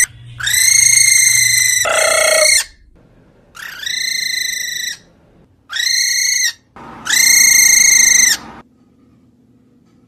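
Cockatiel calling: five loud, drawn-out calls, each rising sharply at the start and then held. The second call is short and slides down in pitch. The calls stop a little after three quarters of the way through.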